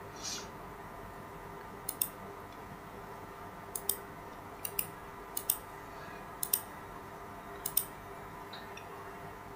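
Computer mouse clicking: about six pairs of short, sharp clicks, roughly one pair a second, over a faint steady hum.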